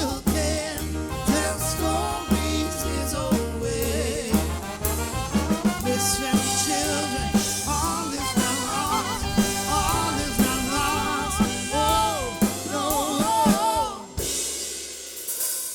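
Live soul band playing a passage without lyrics, with a pulsing bass line, drums and a melodic lead line. The bass and most of the band drop out about fourteen seconds in, leaving a few sliding notes.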